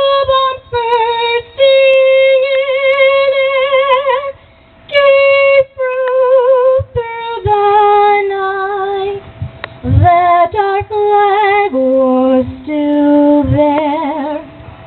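A woman singing slow, held notes with a wavering vibrato, with little or no accompaniment. It is recorded music played through a DJ's mixer and PA speakers.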